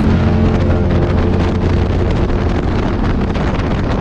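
KTM 990 V-twin motorcycle engine running under way at a steady note, with wind noise on the microphone.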